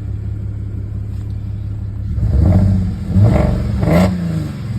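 Audi 3.0 supercharged V6 idling steadily, then revved up in a few swells about two seconds in before settling back to idle. The engine is misfiring, with multiple-misfire codes that point at cylinders 4 and 5, and it is vibrating a lot.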